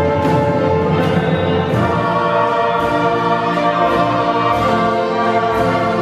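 Orchestra with a large string section playing long sustained chords, the tones held steady and full throughout.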